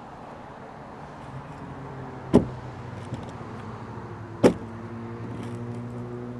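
Two sharp knocks about two seconds apart, over a low steady hum that builds up from about a second in.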